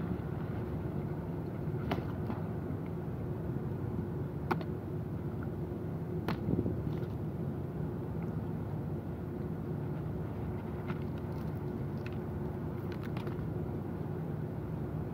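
Steady low mechanical hum with one fixed tone, with a few light clicks and taps about two, four and six seconds in.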